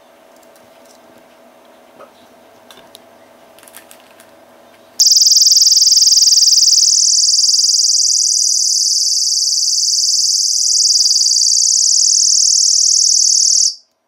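Keychain personal security alarm sounding a loud, piercing high-pitched shriek. It starts about five seconds in and cuts off suddenly just before the end, after a few faint handling clicks.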